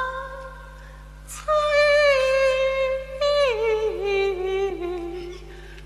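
Female Cantonese opera singing: a held note fades out, then after a short lull a new high note is sustained, slides down in steps and settles into a lower note with vibrato.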